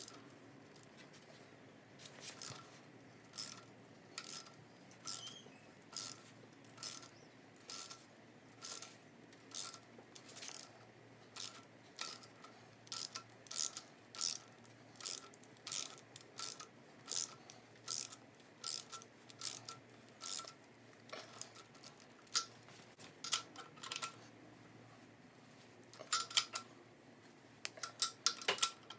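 Hand ratchet clicking at an even pace, about two clicks a second, as it runs the nut of a harmonic-balancer install tool down its threaded rod to press the balancer onto the crankshaft snout; near the end the clicks come in quicker, uneven clusters.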